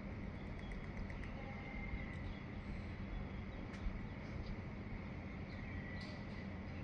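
Faint birds chirping in the dawn chorus over a steady low background rumble, with a couple of sharp clicks.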